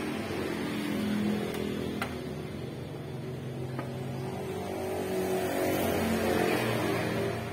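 A motor vehicle engine running, its pitch shifting up and down and getting louder near the end, with two light clicks about two and four seconds in.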